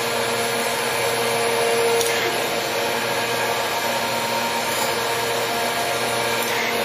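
Gallmeyer & Livingston Grand Rapids 660 surface grinder running under power: a steady whir from its 7.5 hp wheel-head motor and hydraulic drive, with a steady hum throughout.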